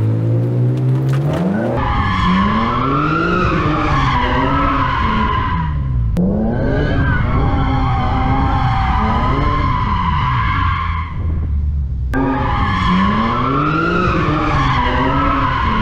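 BMW M3 doing donuts: its tyres squeal continuously while the engine revs up and down. The engine revs up alone for the first couple of seconds before the squeal starts, and the sound breaks off abruptly and restarts twice, about six and twelve seconds in.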